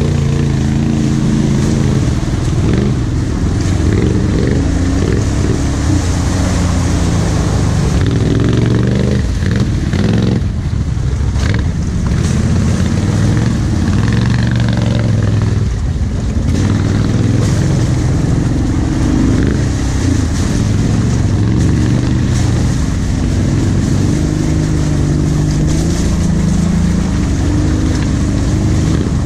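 ATV engine running close-up as the quad crawls along a muddy trail, its pitch rising and falling with the throttle throughout.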